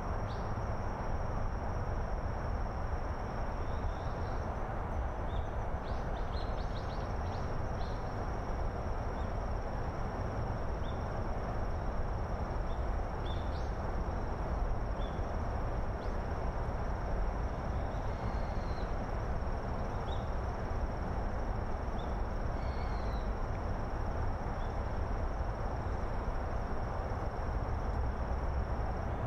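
Outdoor ambience: a steady low rumble with a continuous high insect trill over it, and scattered short bird chirps. A brief run of clicks sounds about six seconds in.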